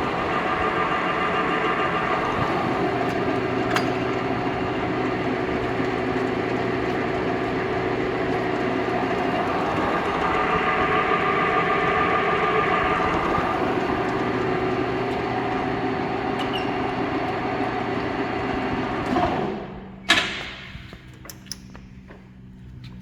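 Jet GH 1440ZX geared-head lathe running, a steady dense whir of the gearbox and spindle. About nineteen seconds in it drops away sharply to a low hum, followed by a few sharp clunks.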